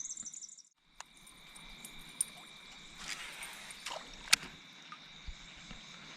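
Faint water lapping and sloshing around a kayak, over a steady high insect drone, with a few sharp knocks; the loudest knock comes about four seconds in.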